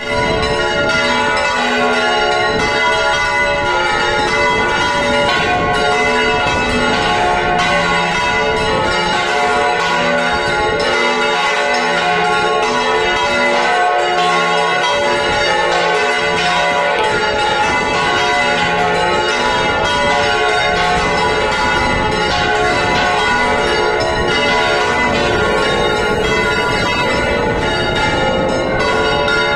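Six church bells swung together by automatic motors in a general peal, ringing without pause. Their deep and high tones overlap continuously.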